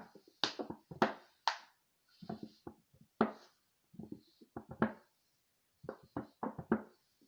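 Plastic milk jug being squeezed and handled against the face: a string of short crackles and taps, in several small clusters.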